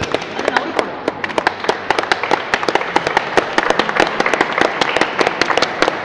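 Applause from a small group of people: sharp, separate hand claps, several a second and irregular.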